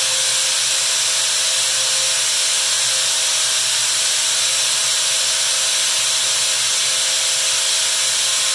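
Corded high-speed electric drill running steadily at full speed, spinning a metal gearbox shaft against 120-grit sandpaper. A steady motor whine sits under the loud hiss of the sandpaper sanding the shaft's black finish off.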